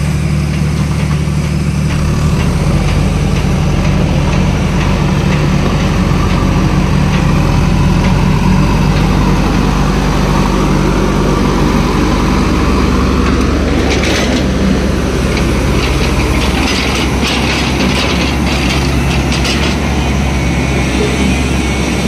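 JCB backhoe loader's diesel engine running steadily at close range. From about two-thirds of the way through, a clatter of metallic rattling and clicking joins it.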